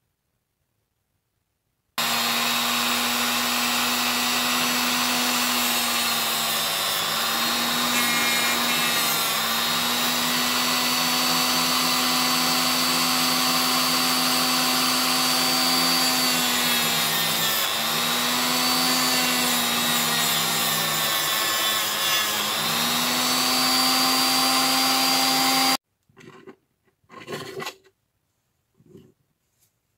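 Handheld rotary tool with a small disc running at speed, grinding a small metal chisel blade. It starts about two seconds in, and its steady whine dips in pitch several times as the disc bears on the metal, then stops abruptly. A few light knocks and clatters follow near the end.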